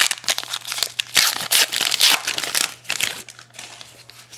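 A Topps Heritage baseball card pack being torn open close to the microphone: the wrapper crinkles and crackles for about three seconds, then dies down near the end.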